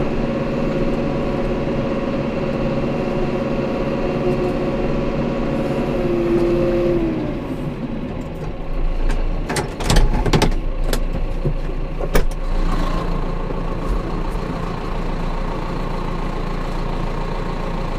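John Deere tractor's diesel engine running, heard from inside the cab; about seven seconds in its note falls as it slows to idle. A few loud clunks follow around ten and twelve seconds in, then the engine idles steadily.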